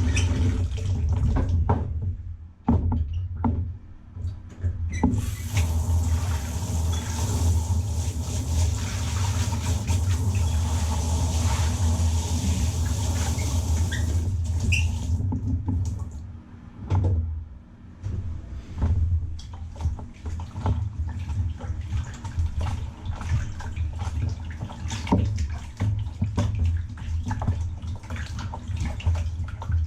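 Water running and splashing for about ten seconds in the middle, over a steady low hum, then scattered wet squishes and drips as a soaked car carpet is washed.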